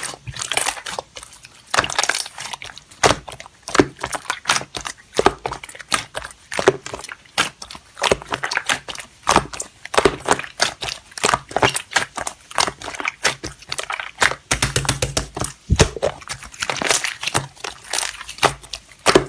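Slime being pressed and squeezed by hand, making dense, irregular crackling and popping of trapped air.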